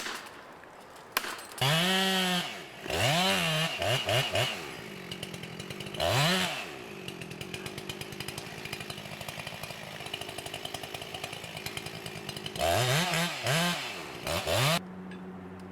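Two-stroke chainsaw revved up and down in several short bursts, dropping back to idle between them.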